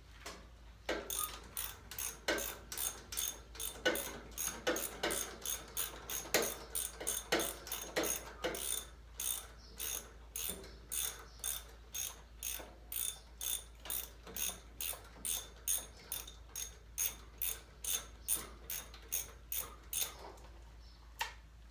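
Ratchet socket wrench clicking in a steady run of strokes, about two to three clicks a second, as bolts are driven in. It starts about a second in and stops near the end.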